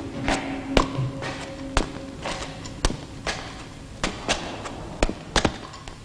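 Footsteps going down stone stairs, a step about every half second, each a sharp tap or heel click, some with a scuff of the sole.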